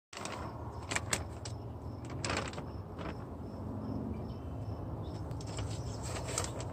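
Scattered light clicks and taps of plastic seedling cups being handled and lifted on a metal mesh patio table, with a short rustle about two seconds in. A steady low rumble lies underneath, and a faint high tick repeats a couple of times a second in the middle.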